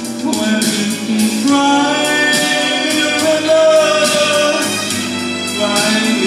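A man sings a slow ballad into a microphone over instrumental accompaniment, holding long notes.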